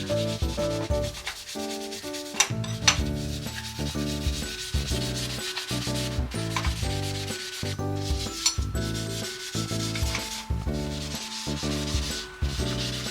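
Background music with a melody of short, changing notes over a bass line, together with a continuous scrubbing sound and a few sharp clicks.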